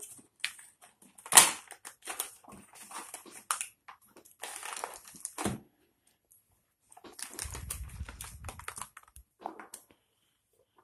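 Cardboard and plastic blister packaging of a Beyblade duel pack being torn open and crinkled by hand: irregular crackles, rips and rustles, with a short pause a little over halfway through.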